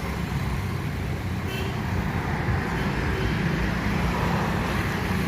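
Steady low rumble of road traffic, with a brief faint chirp about a second and a half in.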